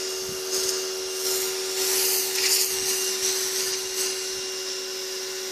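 Sun Joe 1450 PSI electric pressure washer running with a steady motor hum, its water jet hissing against a car windshield. The hiss swells and fades several times as the spray sweeps across the glass.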